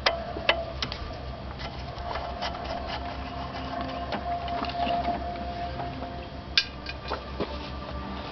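Screwdriver working the small terminal screws on a distributor-mounted ignition coil: scattered light metal clicks and ticks, with one sharper click about six and a half seconds in, over a faint steady hum.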